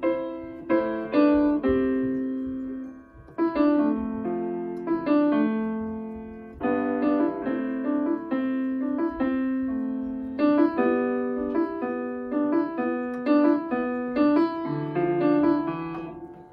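Sampled acoustic piano from UVI Workstation, played live on a KeyLab Essential 61 MIDI keyboard and heard through small computer speakers: a slow run of chords and melody notes, each ringing and fading.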